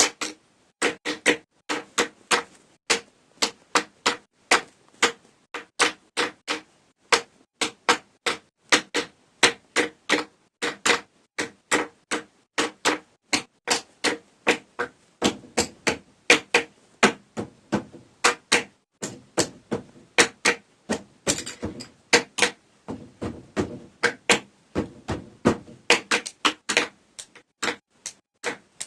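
Pencils knocking in a rhythmic pattern of sharp clicks, several strikes a second, played as a percussion piece.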